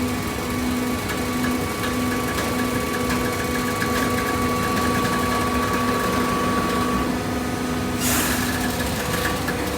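Small gasoline engine of a cardboard baler running steadily, with a low hum pulsing on and off and a short burst of hiss about eight seconds in.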